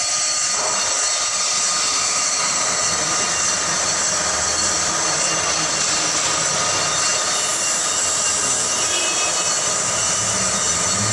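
On-car brake lathe spinning a brake disc while coarse sandpaper is held against its face, making a steady high-pitched hiss. This is the sanding pass that smooths the freshly machined disc surface.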